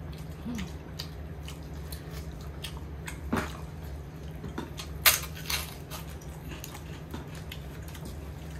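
Eating sounds from a meal of rice, dal and pickle: chewing and scattered small clicks and taps, with one sharper click about five seconds in. A steady low hum sits underneath.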